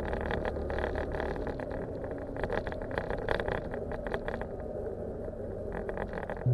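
Scooter running along the road, its small engine's steady drone mixed with wind rumbling and buffeting on the camera microphone.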